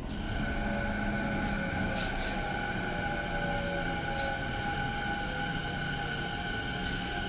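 Electric commuter train running, heard from inside the passenger car: a steady rumble of wheels on rail with a steady high-pitched whine in several tones and a few brief clicks.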